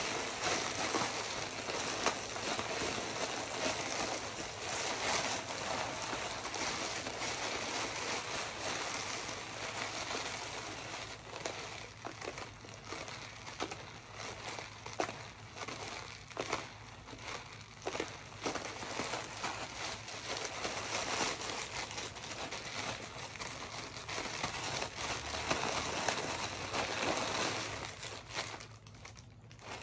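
A plastic poly mailer package squeezed and rubbed between the hands and long fingernails, giving continuous crinkling that rises and falls and eases off near the end.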